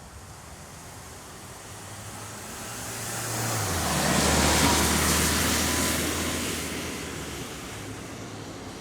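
A vehicle passes by. Its noise builds to a peak about halfway through and then fades, and its low hum drops in pitch as it goes past.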